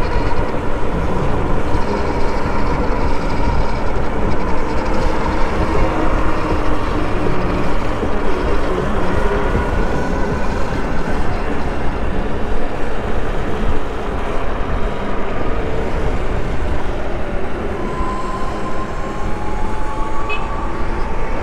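Wind rushing over the microphone and road noise from riding an electric bike at speed, with a faint steady motor whine.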